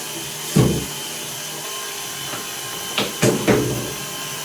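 DeWalt 20V cordless power cleaner running, its pump motor humming steadily as it sprays water into a bathtub. A few brief louder bursts come about half a second in and around three seconds.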